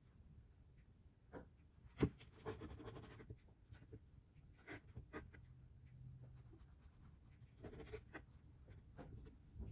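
Kitchen knife slicing soft crustless white bread on a plastic cutting board: faint scratchy cutting with a few light taps of the blade on the board, the sharpest about two seconds in.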